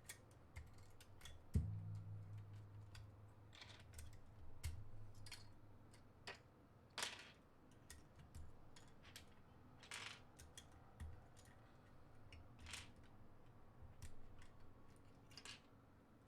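Faint handling of plastic SA keycaps: scattered light clicks and short rustles, with a dull thump about one and a half seconds in.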